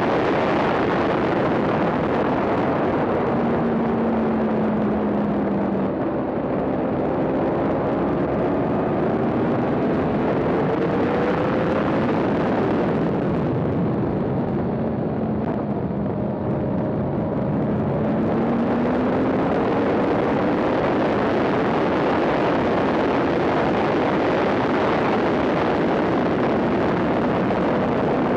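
Yamaha R1 inline-four sport-bike engine running hard at high revs, heard onboard under heavy wind rush on the microphone. The engine note rises and falls with throttle and gear changes, and the wind rush eases about six seconds in and again from about 13 to 18 seconds as the bike slows for corners.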